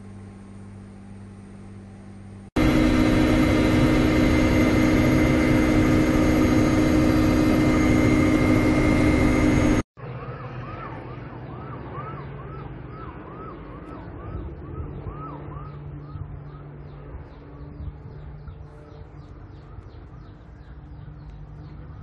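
Steady aircraft engine noise, first low, then much louder from about two and a half seconds in, cutting off abruptly near the middle. After it, a siren yelps rapidly at about two cycles a second over a steady background hum, fading after several seconds.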